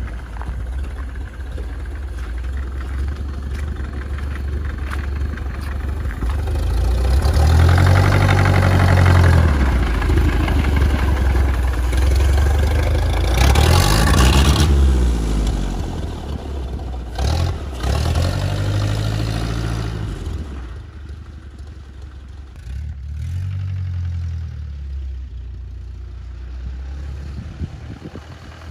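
Original 1931 Ford Model A's four-cylinder flathead engine, running in a bare chassis as it drives past. It revs up and eases off several times, is loudest about halfway through as it passes close, then fades as it drives away.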